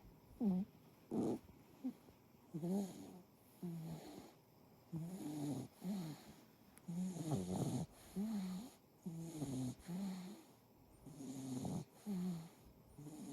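Tortoiseshell cat snoring in deep sleep: a run of short, low snores coming irregularly, about one a second.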